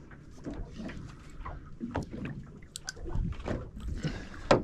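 Small waves slapping against a fishing boat's hull, with scattered irregular knocks and clicks and one sharp knock near the end.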